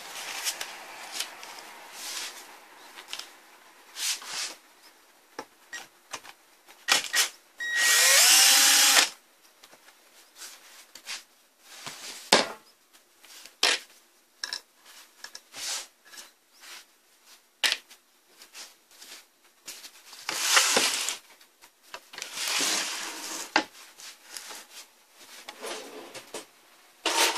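Cordless power screwdriver whirring in short bursts to back screws out of a power inverter's aluminium case, the longest about a second with a rising whine. Between the bursts come scattered clicks and clatter of screws and metal parts being handled, as the inverter is taken apart.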